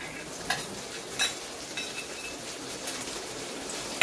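Chopped onions sizzling in hot butter and garlic in a small pan, with a few light clicks of a steel spoon scraping a steel bowl and the pan, and a sharper knock at the very end.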